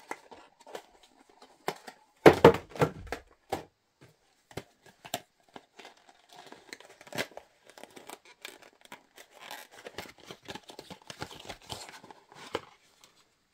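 Small cardboard box being opened by hand: paper flaps rustling and scraping, with scattered clicks and knocks as a plastic battery adapter is handled inside it. A louder thump about two seconds in.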